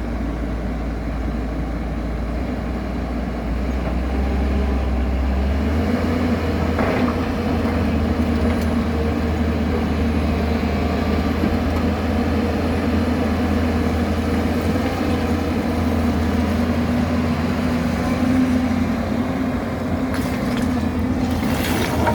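Excavator's diesel engine running steadily. It grows louder and shifts in pitch about four to six seconds in, and there are a few sharp clicks or knocks near the end.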